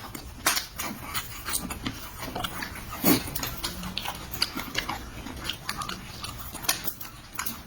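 A person chewing and smacking food close to the microphone, with frequent short clicks and a sharper crunch about three seconds in.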